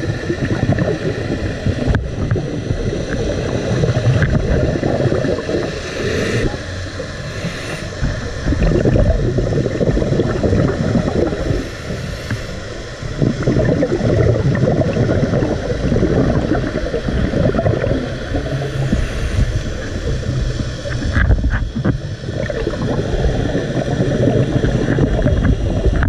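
Underwater recording: a loud, low rumbling and gurgling of moving water around the camera, swelling and fading every few seconds.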